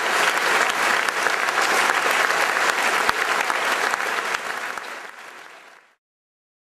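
Theatre audience applauding, a dense clapping that fades out and stops near the end.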